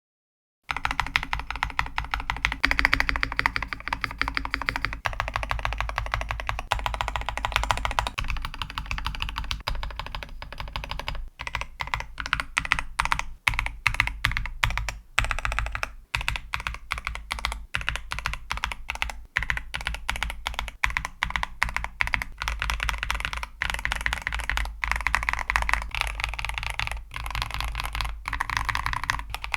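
Typing on a Keychron V5 mechanical keyboard with Wuque Studios Aurora Clear switches and Pixel Universe OSA dye-sublimated keycaps, its sound modded with case foam and tape. Continuous fast keystroke clacks start just under a second in.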